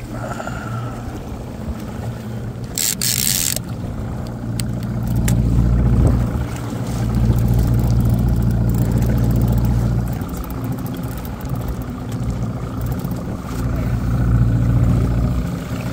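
Evinrude 115 outboard motor running steadily, a low hum that swells and eases, with a brief loud hiss about three seconds in.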